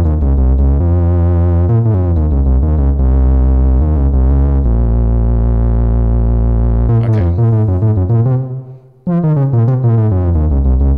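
Moog Werkstatt-01 analog synthesizer playing fat, saturated bass notes, with its gate and VCA inputs cranked all the way up so the VCA overdrives. The notes change pitch every second or so; the sound fades out about eight seconds in and a new note starts a second later.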